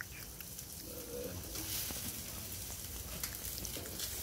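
Meat sizzling quietly on a barbecue grill, a steady faint hiss with scattered small crackles. A short low tone is heard about a second in.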